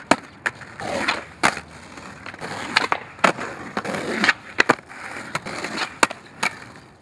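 Skateboard wheels rolling on concrete, broken by about a dozen sharp clacks of the board being popped and landing.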